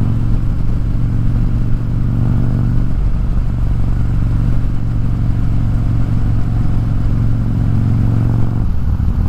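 Motorcycle V-twin engine running steadily under way at road speed, with wind rush. The engine note thins and changes shortly before the end.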